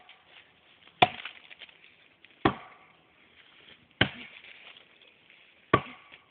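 Axe chopping into a standing tree trunk: four strikes, about a second and a half apart.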